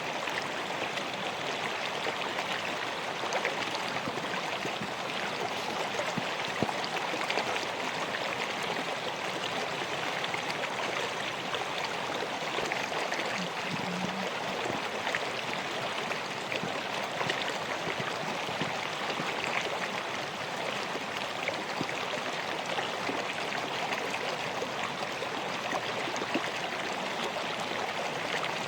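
River water flowing, a steady rushing babble with no pauses.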